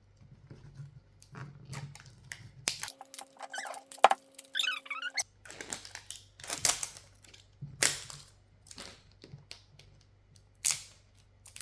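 Plastic surprise capsule being opened by hand: scattered rustles, crinkles and clicks as the compartments are pried open, with a brief steady hum and a sharp click near the middle.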